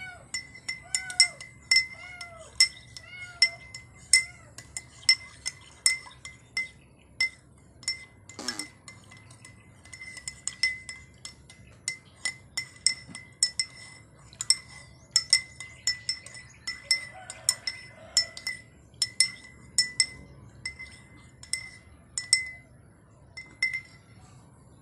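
Metal spoon stirring coffee in a ceramic mug, clinking against the side again and again, about two or three ringing clinks a second. Over the first few seconds a kitten also gives several short, falling mews.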